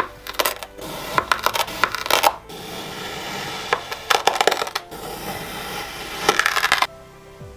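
Kinetic sand being cut and crumbled: a grainy, crackling crunch in several bursts, stopping shortly before the end.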